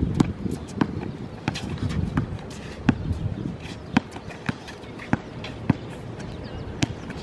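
Basketball players moving on an outdoor hard court: footsteps and sneaker scuffs with scattered sharp knocks that are not evenly spaced, among them a basketball bouncing.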